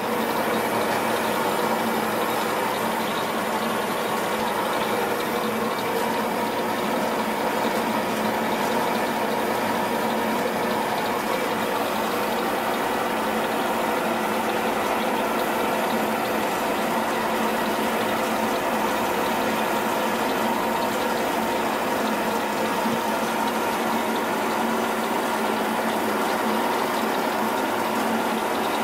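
Klaeger & Müller HBS 320 G metal-cutting band saw running free, not cutting. There is a steady, unchanging hum with several fixed tones and an even hiss over it.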